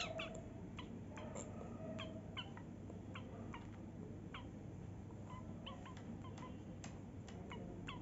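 Cockatiel giving many short, soft chirps at an uneven pace, some sliding slightly up or down in pitch.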